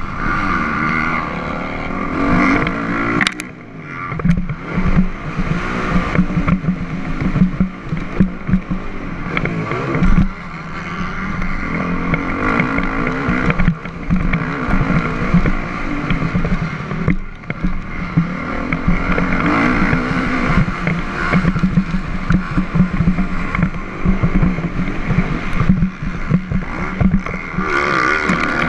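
Motocross dirt bike engine ridden hard, revving up and down through the gears. The throttle is chopped briefly about three and a half seconds in and again around ten seconds, then picks back up.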